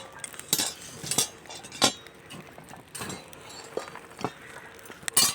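Sharp metallic clinks and knocks at uneven spacing, about seven in five seconds, as coal is fed into the firing holes of a brick kiln.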